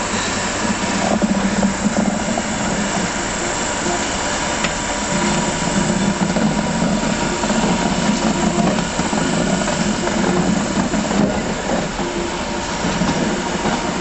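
BR Class 86 electric locomotive moving slowly while shunting coaches: a steady hiss and hum, with a faint steady whine above it.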